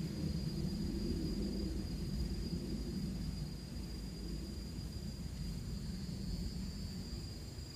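Insects trilling in one steady, high, unbroken tone, over a low rumble that is the loudest part of the sound.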